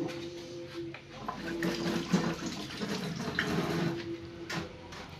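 Liquid trickling and splashing into a cup, a pour that starts about a second in and lasts roughly three and a half seconds.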